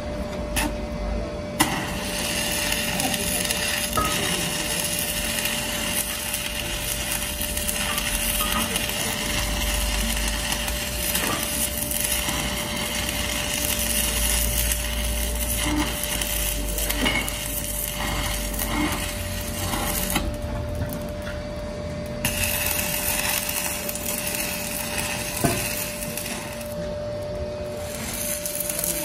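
Stick (arc) welding on a steel truck wheel rim, welding a repair to the broken rim plate: the arc crackles and sizzles steadily, stops briefly about two-thirds of the way through and again near the end, then strikes up again. A steady hum runs underneath.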